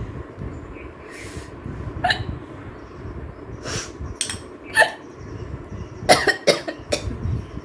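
A woman hiccuping repeatedly, short sharp hiccups every second or so with several coming close together about six seconds in. The hiccups are brought on by eating very spicy pasta.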